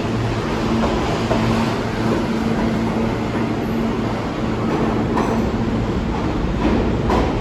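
New York City Subway R160 train running through the station: a steady rumble of wheels on rail with a low hum, and a few sharp clicks of wheels over rail joints in the last couple of seconds.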